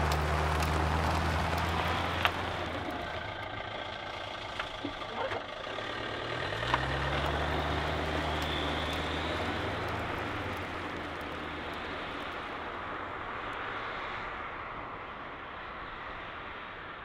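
Small car engine running, then a few sharp clicks. About six seconds in the engine revs up again as the car pulls away, and its sound slowly fades into steady road and wind noise as it drives off.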